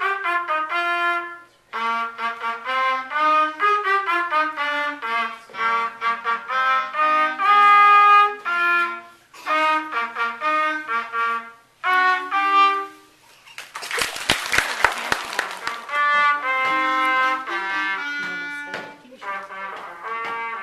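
Two saxophones playing a melodic duet, one line pitched above the other. About two-thirds of the way through, the playing breaks for a brief loud burst of noise lasting about two seconds, then resumes.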